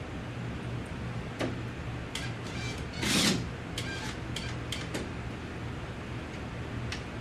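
Scattered clicks and knocks of hardware being handled as a wall-mounting brace is fixed to the wall, with one short, louder rasp about three seconds in, over a steady low hum.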